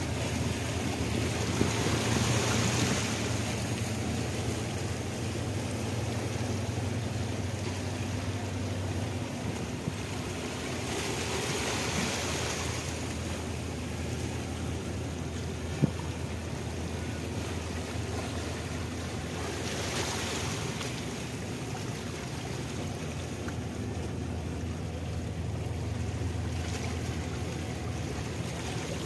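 Steady low drone of ship engines from a passenger ship docking with a tugboat, over harbour water. Waves wash in a few times, and there is a single sharp click about halfway through.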